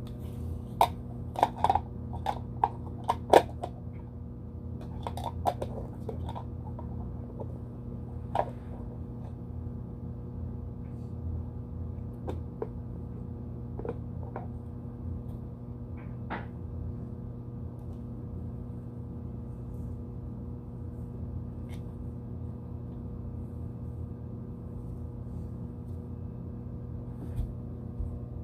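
Small plastic toy parts clicking and tapping as a doll and its stand are handled, several quick clicks in the first few seconds and a few scattered ones later, over a steady low hum.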